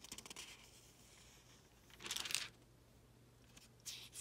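Thin Bible-paper pages being turned, faint papery rustles and ticks with one louder page-turn swish about two seconds in.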